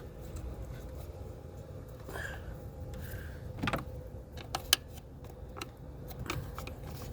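Scattered small plastic and metal clicks and knocks as an ignition coil's electrical connector is worked loose by hand, the sharpest click a little past the middle, over a steady low hum.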